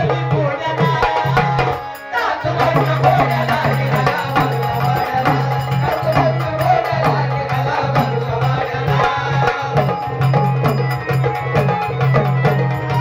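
Marathi folk music played live: a hand drum beating a steady rhythm under a bending melodic line, with a steady low drone, briefly dropping out about two seconds in.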